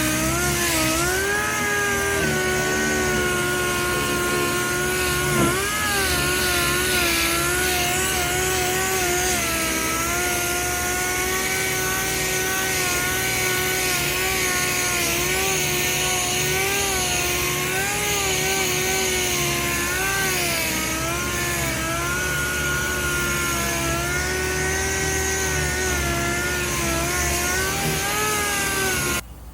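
Power sander running steadily against a truck bed quarter panel, its motor pitch dipping and recovering slightly as it is pressed and moved, sanding the panel to prep it for fiberglass resin. It cuts off suddenly near the end.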